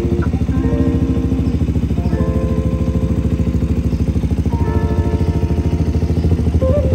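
Husqvarna Svartpilen 200's single-cylinder engine idling steadily in a fast, even pulse, with background music playing over it.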